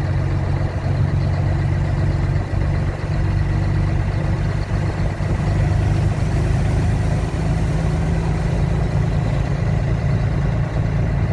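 Truck engine running steadily under way, a continuous low hum with road noise, heard from inside the cab.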